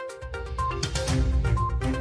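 Background music with a steady beat and short repeated notes; a deep bass comes in just after the start.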